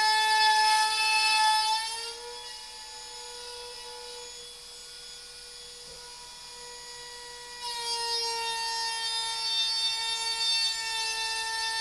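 Trim router with a 1/4-inch upcut spiral bit routing a slot in the projector enclosure's top panel: a steady high motor whine. From about two seconds in it runs a little higher in pitch and much quieter, then near eight seconds it drops back in pitch and grows loud again.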